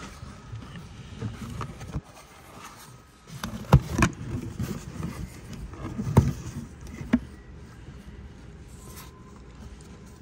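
Handling noise from a new spin-on oil filter and its cardboard box under gloved hands: rustling and scraping with four sharp knocks between about three and seven seconds in, as oil is smeared onto the filter's rubber gasket.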